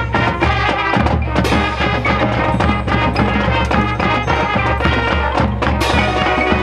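High school marching band playing its field show, the full band with drums, with two sharp crashes that ring on, about a second and a half in and near the end.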